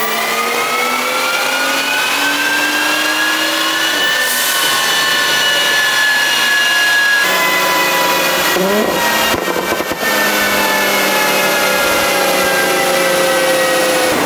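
Audi B9 S5's turbocharged 3.0-litre V6, fitted with an aftermarket intake and downpipe, running at full throttle under load on a chassis dyno, its pitch climbing steadily as the revs rise. About seven seconds in the sound cuts abruptly to another stretch held at steady high revs.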